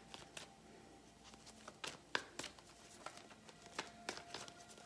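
Tarot deck being shuffled by hand, one packet dropped into the other: faint, irregular soft clicks and slaps of cards, a few a second.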